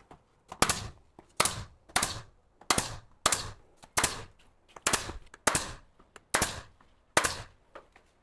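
Nail gun firing nails one after another, about one shot every 0.7 seconds, fixing the first layer of board around a door opening.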